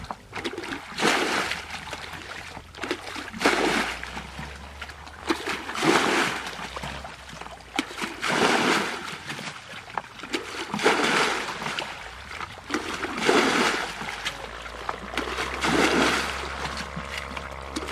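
Water splashing in regular surges, about one every two and a half seconds, each lasting about a second.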